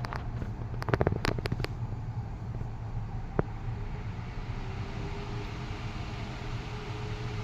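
Dominion 2012C 10-inch oscillating table fan starting up: its shaded-pole motor hums steadily, and the rush of air from the blades builds as they come up to speed from about halfway in. A quick cluster of clicks comes about a second in, and a single click a little later.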